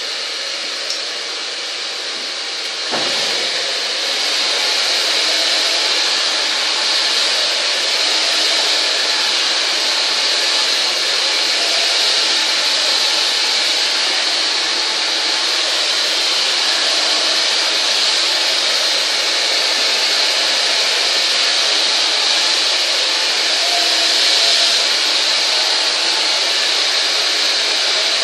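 Handheld hair dryer running steadily, blow-drying long hair, with its air noise getting louder about three seconds in.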